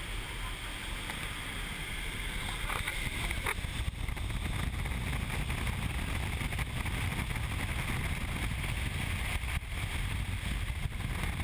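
Steady rush of an indoor vertical wind tunnel's airflow buffeting the microphone, rising a little a few seconds in as the flyer moves from the doorway into the airstream.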